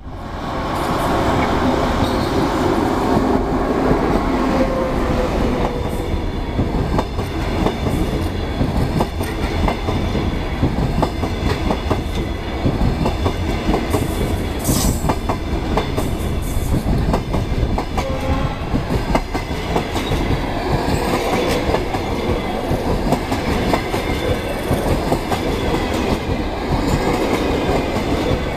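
Passenger train hauled by a ChS2T Czechoslovak DC electric locomotive passing close at speed. It makes a loud steady rumble with rapid clickety-clack of the coach wheels over the rail joints, and a humming tone for the first few seconds as the locomotive goes by.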